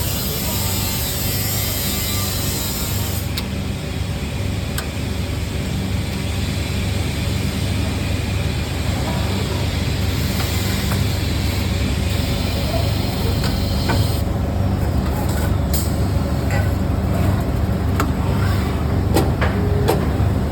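Automatic 3D printer filament spooling machinery running: a steady low mechanical hum, with a few sharp clicks in the last third.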